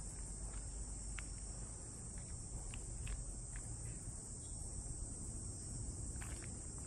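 Steady high-pitched drone of insects, with a low rumble underneath and a few faint ticks.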